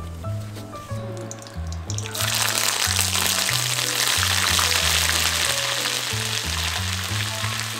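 Salted shrimp deep-frying in hot oil in a small pot: a loud, dense sizzle that starts suddenly about two seconds in and keeps up until near the end. Background music plays throughout.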